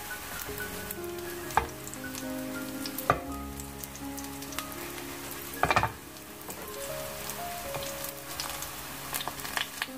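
Battered shiitake mushroom strips sizzling as they fry in shallow oil in a pan. A few sharp clicks come through, about one and a half, three and six seconds in.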